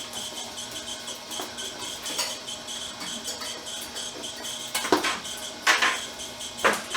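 Stripmeister electric wire stripper's motor running steadily with a high whine as insulated copper wire is fed through it. Sharp metallic clinks come a little under five seconds in and again near six seconds.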